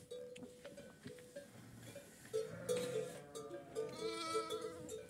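Sheep bleating in a flock, several overlapping bleats in the second half, one of them wavering about four seconds in.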